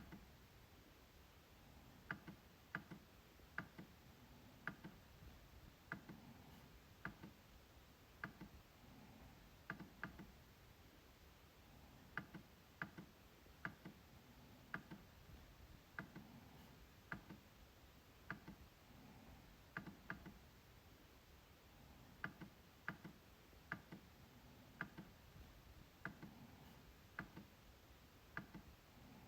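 MacBook trackpad being clicked: quiet, sharp clicks at an uneven pace, roughly one or two a second, many of them in quick pairs like double-clicks.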